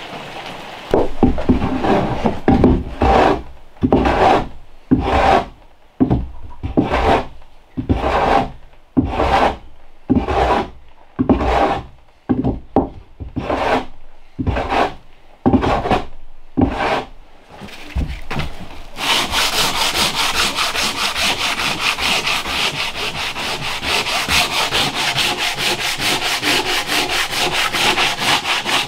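Briefly rain at the start, then long strokes of hand rubbing or sanding across a nailed wooden plank door, about one stroke a second. A little over halfway in this gives way to fast, continuous rubbing over the boards.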